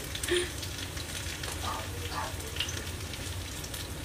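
Chopped garlic sizzling in hot oil in a wok: a steady, even frying hiss, with a low steady hum beneath it.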